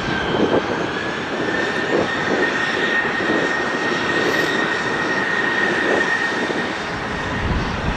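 Jet airliner's engines running loud: a steady rush with a high whine that climbs a little about a second in, holds, and fades near the end.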